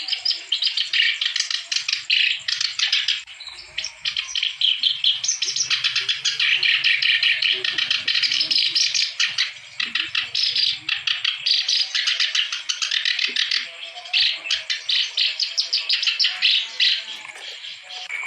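Reed warbler (kerak basi) singing a long, fast run of rapid chattering notes. The song breaks briefly about three and a half seconds in and again about ten seconds in.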